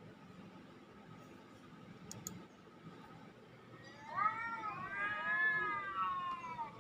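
A recording of a cat meowing, played through laptop speakers: drawn-out yowling meows that begin about four seconds in and rise and fall in pitch.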